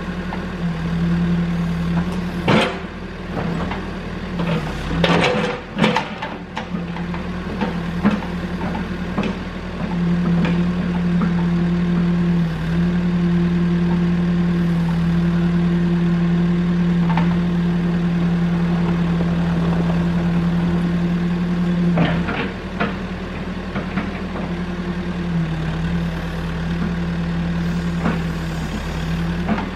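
Caterpillar backhoe's diesel engine running steadily under the hydraulic work, its note stepping between two steady speeds as the load changes. Several sharp knocks and clanks from the bucket and boom, the loudest cluster about five to six seconds in.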